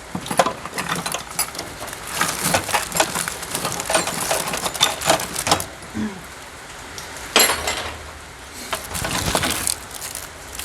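Small tools and parts rattling and clinking as they are picked through and moved around by hand in a toolbox, with a louder clank about seven seconds in.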